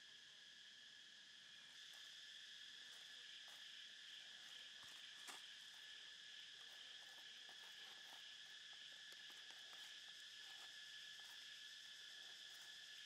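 Faint steady insect chorus with scattered soft crackles from a salmon backbone grilling over charcoal, the sharpest crack about five seconds in.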